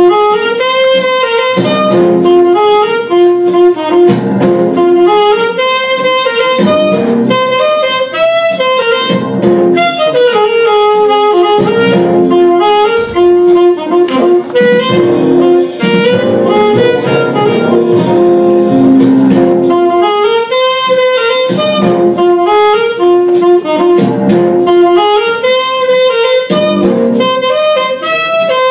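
Alto saxophone playing a melody of held notes that step up and down in pitch.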